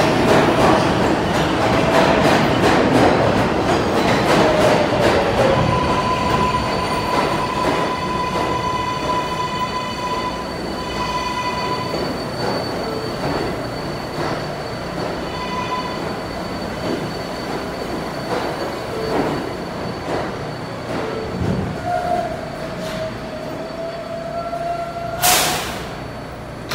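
R188 subway train pulling into the platform and slowing to a stop. Rumble and clicks over the rail joints give way to a steady whine and wheel and brake squeal as it slows, then a brief loud hiss near the end as it halts.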